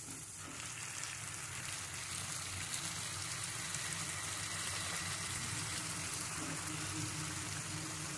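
Hot oil sizzling steadily in a pan of frying soaked dal, green chillies and garlic, with chopped dill leaves heaped in on top.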